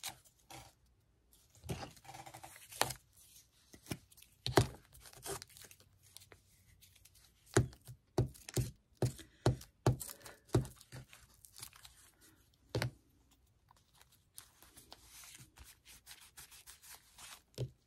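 Paper handling at a craft table: paper rustling and being pressed down, with scattered sharp taps and clicks, a quick run of them about halfway through, as a paper cut-out is glued onto a journal page.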